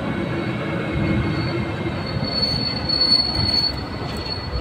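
Freight train of tank wagons behind a Siemens Vectron electric locomotive rolling along a platform track. A high, steady wheel squeal sets in about halfway through over the rolling noise.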